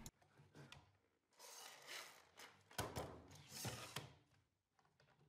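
Faint clicks, scrapes and rubbing as parallel clamps are set on a glued-up stack of boards and tightened, in two short spells.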